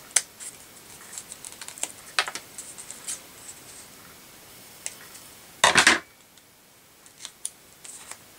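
Scissors snipping paper: a run of small, sharp snips and clicks through the first few seconds, with light paper handling. A brief, louder noise comes about six seconds in.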